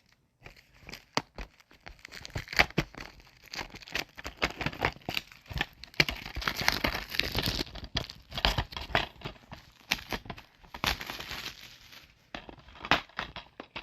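Plastic packaging on a DVD case being crinkled and torn off, with irregular crackling and sharp clicks of handling.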